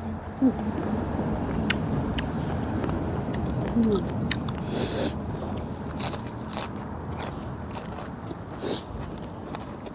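A person chewing mouthfuls of spicy seafood rice-noodle salad, with scattered sharp clicks and smacks of the mouth.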